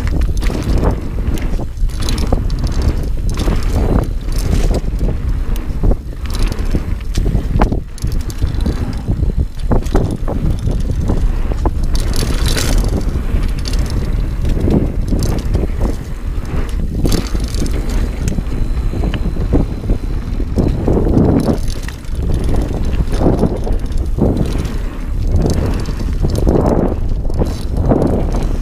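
Dartmoor Primal 29er hardtail mountain bike ridden fast down a dirt forest trail: the tyres rumble on the ground, with many sharp knocks and rattles as it runs over bumps.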